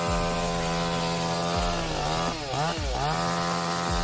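Two-stroke chainsaw running at high revs. Its engine note dips in pitch and comes back up a few times, about a second and a half in, around two and a half seconds in, and near the end.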